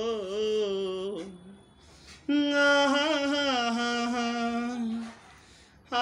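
A lone voice, with no instruments, sings a Hindi song's melody in long held notes. One note ends about a second in, and after a short pause a second long note wavers for nearly three seconds.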